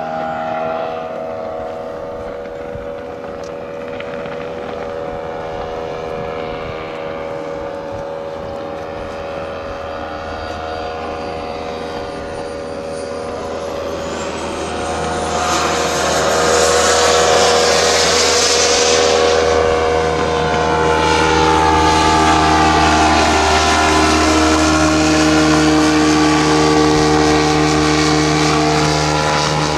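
Radio-controlled model airplane's motor and propeller droning in flight, its pitch bending as it moves about. A close, louder whooshing pass comes about halfway through, over a steady low hum.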